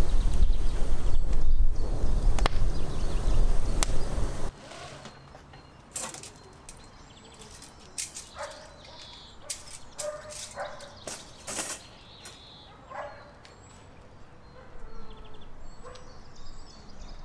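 Split firewood burning in an outdoor masonry grill, crackling over a heavy low rumble, for about four seconds until it cuts off suddenly. After that, metal skewers clink and knock at irregular moments.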